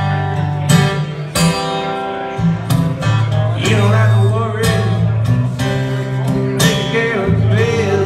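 Eastman E10OM acoustic guitar playing an instrumental blues passage, with strummed chords over a steady bass line.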